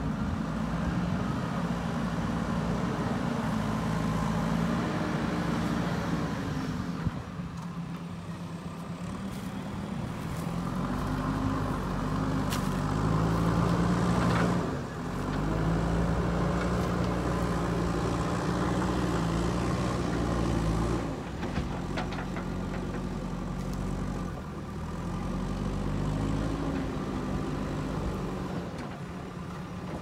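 JCB backhoe loader's diesel engine working under load, its revs rising and falling again several times. A few sharp knocks come over it, the loudest near the middle.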